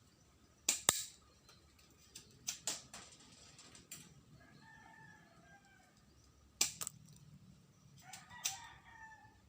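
Spring-powered airsoft Beretta pistol firing: several sharp snaps, some in quick pairs, as the magazine is shot empty. A rooster crows twice in the background.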